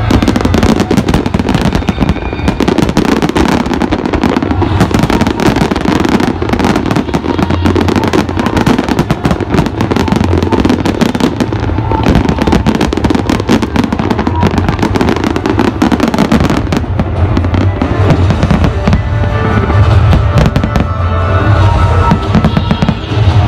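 Aerial fireworks display: a dense, continuous run of bangs and crackles from shells bursting overhead, with a heavy low rumble.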